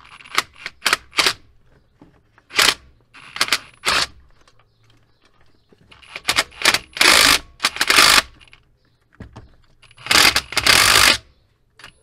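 Ridgid cordless ratchet running in bursts on exhaust manifold bolts. Several quick blips come first, then single short runs, then two longer runs of about two seconds and about one second.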